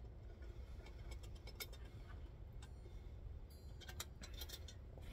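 Faint, scattered clicks and scrapes of a utensil against a stainless steel camp cook pot as cooked rice and macaroni are worked out into a bowl, with the food coming away without sticking.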